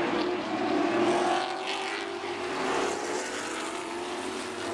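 A pack of Super Late Model race cars' V8 engines running at speed around a paved oval. It is a steady, continuous engine drone whose pitch rises and falls slightly as the cars pass.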